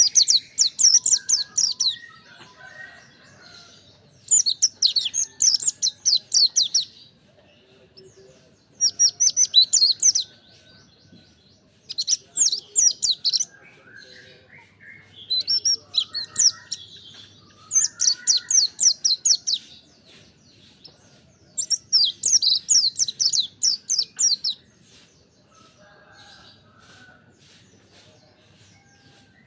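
Mountain white-eye (pleci montanus) singing in about seven bursts of fast, high twittering, each lasting about two seconds with short pauses between, then falling quiet near the end.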